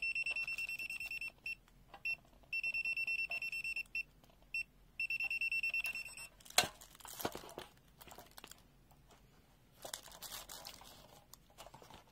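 The BSIDE A5X multimeter's non-contact voltage buzzer gives rapid high-pitched beeping in several on-off bursts over the first six seconds, its alert that it senses the live (hot) wire in the socket. After that come a sharp knock and scattered handling rustles as the meter is moved.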